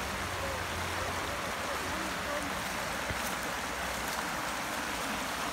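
Shallow creek water rushing steadily over rocks and small rapids.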